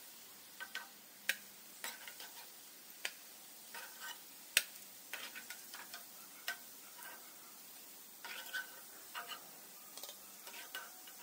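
Hot coconut oil sizzling faintly as fried rava bondas are lifted out with a slotted metal skimmer. The skimmer clinks and scrapes against the pan at uneven intervals, with one sharper clink about halfway through.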